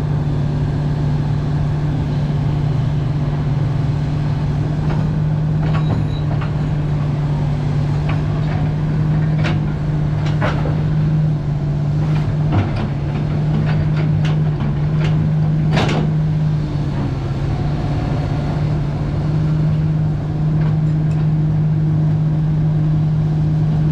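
Komatsu PC300-7 hydraulic excavator's six-cylinder diesel engine running steadily, with a few sharp clunks from the machine in the middle.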